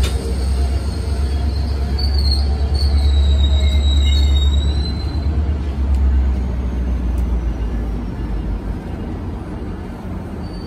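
Metrolink commuter train's bilevel coaches rolling past at the platform. There is a heavy low rumble that eases off about eight seconds in, and a thin, high metallic squeal that sounds from about two to five seconds in.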